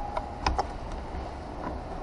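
A few light clicks and taps from transmission parts and tools being handled during a rebuild, the clearest about half a second in, over a low steady hum.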